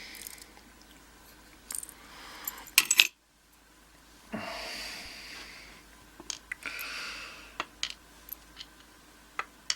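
Small metal lock pins and springs being tipped out of a pin-tumbler cylinder onto a hard surface, clinking and ticking as they drop. A loud click about three seconds in, then a scatter of light ticks.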